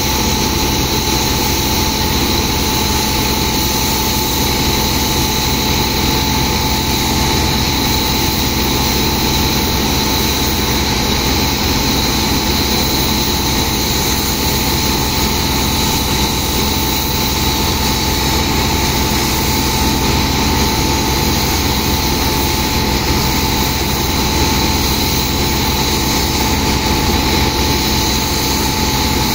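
Heavy engine-driven sand pump running steadily and loudly as it sucks water-jetted sand slurry out of a barge hold, a constant drone with steady high whining tones over it.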